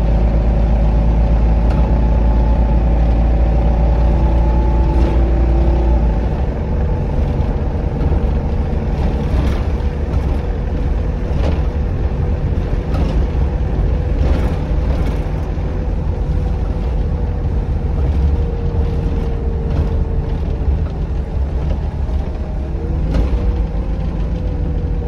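Optare Solo SR bus running on the road, heard from inside the passenger cabin. A heavy low rumble lightens about six seconds in, with steady whining tones that slowly slide in pitch and scattered rattles.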